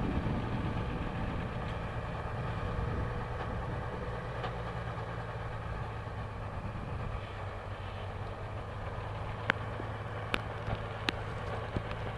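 Engine of a homemade logging truck running steadily at low revs, with a few sharp clicks in the last few seconds.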